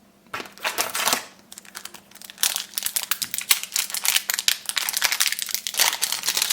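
Trading-card booster pack wrapper being torn open and crinkled in the hands: a short burst of crackling about half a second in, then dense, continuous crinkling from about two and a half seconds on.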